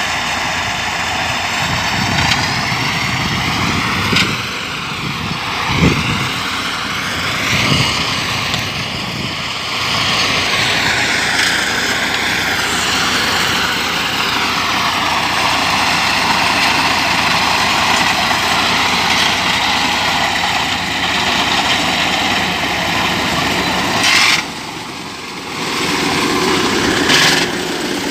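Small engines of grass-mowing machines running steadily, their pitch rising and falling as the cutters take the load of the grass. A few short knocks come in the first eight seconds, and the sound dips briefly near the end.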